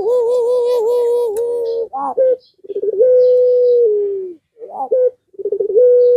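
Puter pelung (ringneck dove) in full song: three long, drawn-out coos, each opening with a quavering note and then held steady, the later ones dipping at the end, with a short rising note between each pair.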